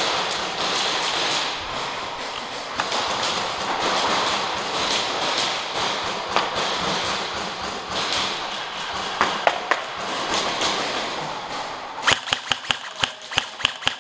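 Gear rustling and scattered knocks as the player moves, then, about 12 seconds in, an airsoft AKS-74U replica fires a rapid, even string of shots.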